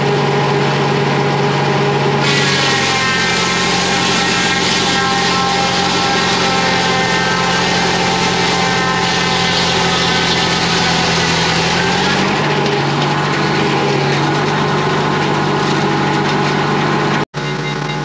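Shop-built circular sawmill running under power, its large blade cutting through a log for about ten seconds before easing back to a free spin, with the drive engine running steadily underneath.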